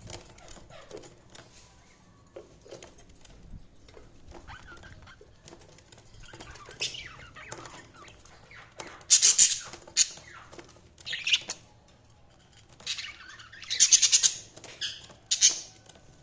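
Budgies chirping and chattering: soft scattered chirps and clicks at first, then loud bursts of high chatter about halfway through and again near the end.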